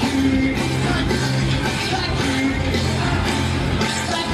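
Live rock band playing loudly through an outdoor concert sound system, heard from among the audience; an instrumental stretch with no clear singing.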